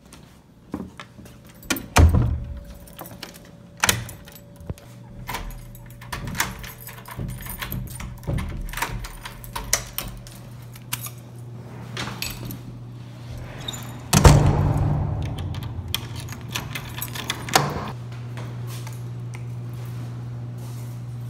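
Keys jangling and a front door being unlocked, opened and shut: a run of clicks and clunks from the lock and lever handle, with a loud knock that rings on briefly about two-thirds through. A steady low hum follows near the end.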